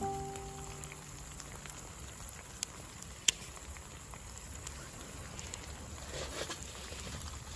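Small fire in a compact camp fire pit crackling over a soft steady hiss, with a few sharp pops, the loudest about three seconds in.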